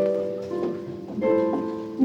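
Gentle instrumental music: chords played as broken groups of notes, each note left to ring on.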